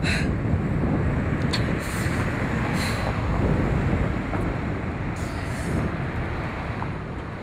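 A heavy vehicle's engine running close by, a steady rumble with a few short hisses, fading away near the end.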